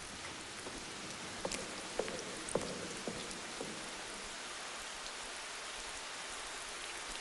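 Steady rain falling, an even hiss, with a few soft separate taps in the first few seconds.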